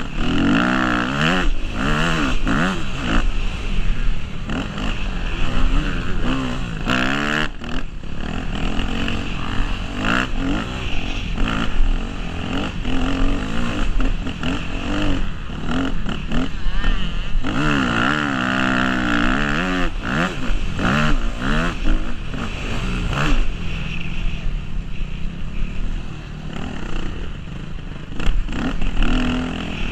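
Yamaha YZ250F four-stroke single-cylinder motocross bike engine being ridden hard, its pitch rising and falling again and again as it revs through the gears, with frequent knocks mixed in.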